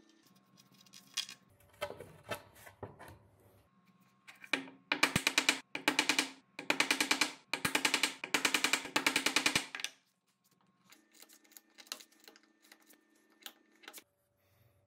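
Handheld cordless drill boring into plywood in four loud bursts of a second or two each, with a fast rattling chatter, cutting the hole for a nut in the sled base. Quieter knocks and handling of tools and wood come before and after.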